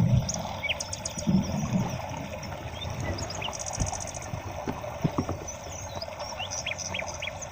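Outdoor nature background: a steady hiss with short, high bird chirps scattered through it, and a few faint knocks.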